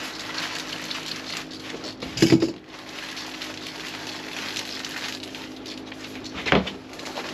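Glued foam boat decking being peeled up from the deck while acetone is sprayed to release the adhesive: a continuous fine crackling as the glue lets go, with two louder tearing bursts, one about two seconds in and one near the end. A faint steady low hum runs underneath.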